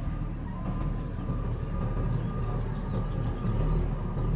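JCB backhoe loader's diesel engine running steadily as it works, while its front loader bucket of soil is lifted over the dump truck and tipped.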